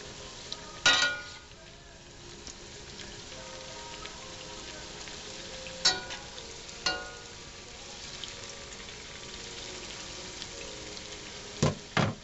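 Sopapilla dough deep-frying in hot oil, a steady sizzle. A wire skimmer clanks with a ringing note against the stainless steel pan about a second in, twice around six to seven seconds, and twice in quick succession near the end, as the puffed pieces are turned.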